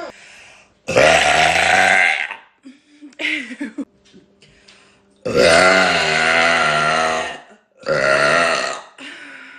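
A woman burping loudly several times. There is a long burp about a second in and a few short throaty sounds after it. A longer burp with a wavering pitch comes past the middle, and a shorter one follows soon after.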